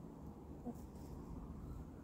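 Quiet outdoor background with a low steady rumble, and one short, soft cluck from a domestic hen about a third of the way in.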